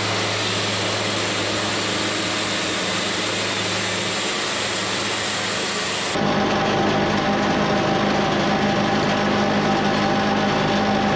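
Portable sawmill running and sawing a low-grade pine cant into boards, a steady engine-and-blade noise. About six seconds in the sound changes abruptly to a slightly louder, steadier tone.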